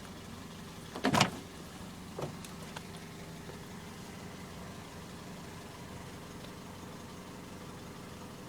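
Car engine running with a steady hum, heard from inside the cabin. About a second in comes one loud, short, rough burst of noise, and a fainter one follows about a second later.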